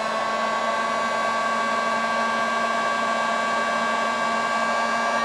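Handheld electric heat gun running steadily, a constant fan whine over rushing air. It is blowing hot air onto a LiFePO4 battery's temperature sensor to trip the over-temperature cutoff.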